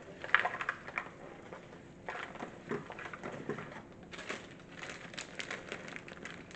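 Cookie dough being mixed by hand in a bowl, with irregular scraping and clicking.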